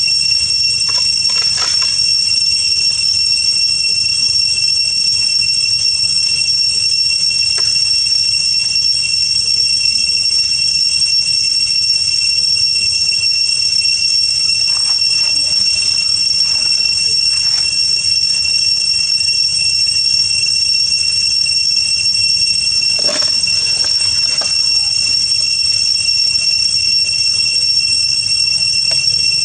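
A steady high-pitched whine of two tones over a low rumble, unchanging throughout. A few faint taps, and one sharper click about three-quarters of the way in.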